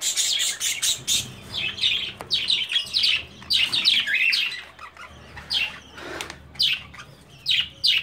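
Small parrots in an aviary chirping: a rapid run of sharp, high calls, each falling in pitch, several a second, with short pauses between bursts.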